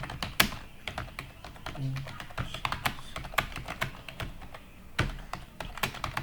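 Fast typing on a computer keyboard: a dense, irregular run of key clicks with a few louder strokes.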